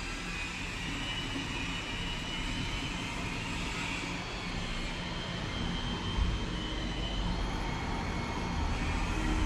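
Steady background rumble and hiss with a faint high whine, one soft knock about six seconds in, growing slightly louder near the end.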